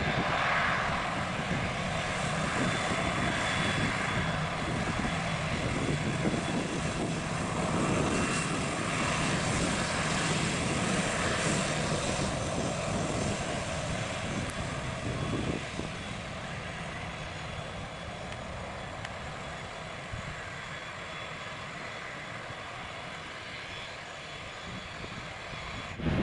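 Airbus A320 jet engines running as the airliner rolls past and away down the runway. The sound is a steady engine noise with no distinct events. About fifteen seconds in it drops to a quieter, more distant jet sound.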